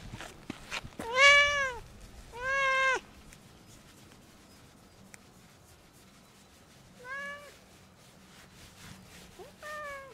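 Tabby cat meowing four times as it is stroked. Two loud meows come about a second apart near the start, then two shorter, quieter ones later, each rising and then falling in pitch.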